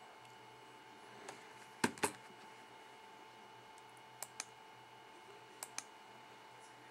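Three pairs of short, light clicks, each pair about a fifth of a second apart, over a faint steady electrical hum.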